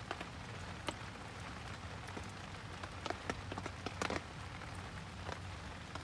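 Heavy rain falling steadily on the shelter's tarp and plastic sheeting, a constant hiss with scattered sharper ticks of single drops.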